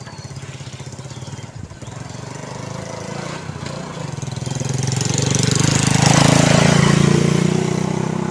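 A motorcycle with a sidecar passing on the road: its engine grows louder, is loudest about six to seven seconds in, then begins to fade.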